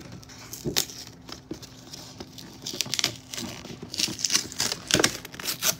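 Cardboard doll playset box being opened by hand, its tape and flaps pulled loose with irregular crackling and sharp clicks, busiest in the second half.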